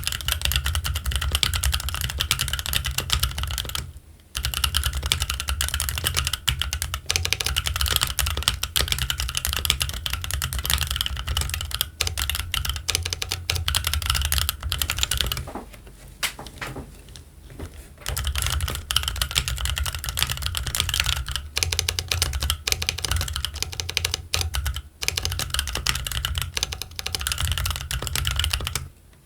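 Fast, continuous typing on a Keychron Q1 aluminium mechanical keyboard with Gazzew Boba U4T tactile switches and Cherry-profile ABS keycaps: a dense run of keystroke clacks. It pauses briefly about four seconds in and for about two seconds past the middle, then carries on.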